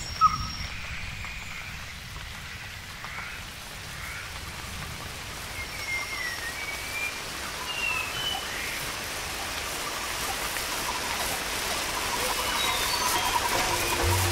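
Forest soundscape of steady rain hiss, slowly growing louder, with a brief sharp note at the start and scattered short bird chirps. A rapidly pulsing call comes in near the end.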